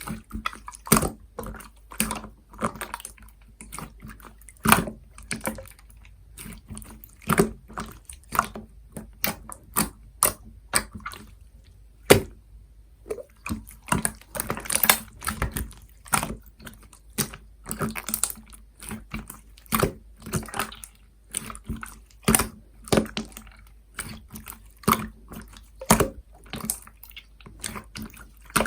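Sky-blue soda slime being squeezed and poked by hand, giving a run of wet, sticky clicks and pops at an irregular pace of about one or two a second, with a brief lull near the middle.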